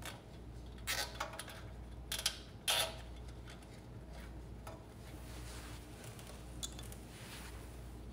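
Light metallic clicks and handling noises from hands fitting small parts on a small generator engine: a few clicks in the first three seconds, then a soft rustle and one more click, over a steady low hum.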